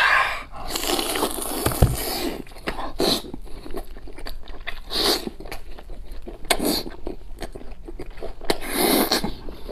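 A person biting and chewing soft, fatty braised pig's head meat close to a clip-on microphone, with wet mouth sounds in irregular bursts. The sounds are loudest in the first two seconds, then come in shorter bursts every second or two.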